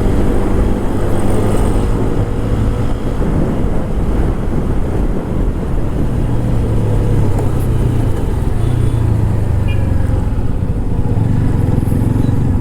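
TVS Apache RTR 160 4V's single-cylinder four-valve engine running through its stock exhaust while riding, under a steady rush of noise. The engine note shifts in pitch over the first few seconds, then settles to a lower steady note.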